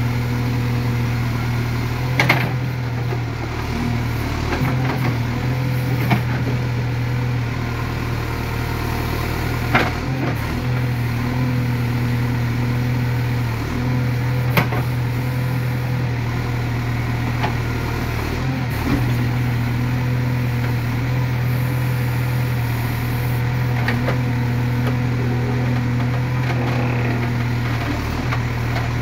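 JCB 3CX backhoe loader's diesel engine running steadily under load while the backhoe digs and moves soil, with a few short sharp knocks a few seconds apart.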